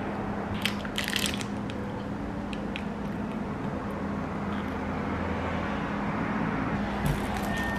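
Plastic protein-bar wrapper crinkling briefly about a second in and again near the end, over a steady low hum.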